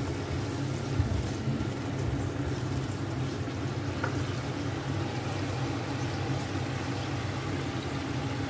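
Rendang sauce boiling in a frying pan, over a steady low hum, with a light knock about a second in.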